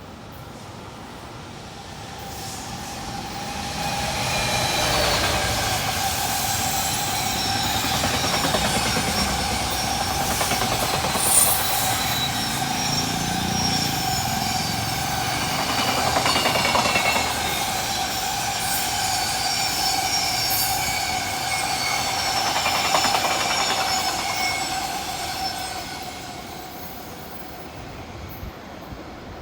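JR Freight container train, an EF210 electric locomotive hauling Koki container wagons, passing: wheels clack over the rail joints in steady rhythm under a steady high-pitched whine. It builds from about two seconds in and fades away near the end.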